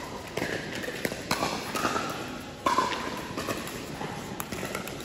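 Sharp pops of pickleball paddles striking plastic balls in a large indoor hall, several scattered hits a second or so apart, with faint voices in the background.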